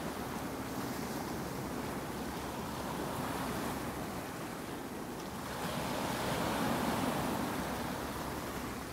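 Ocean surf: waves breaking and washing up the sand in a steady rush, swelling louder for a couple of seconds past the middle.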